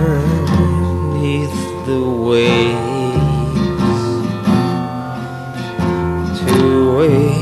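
Music: a song with strummed acoustic guitar and a voice holding long, wavering notes.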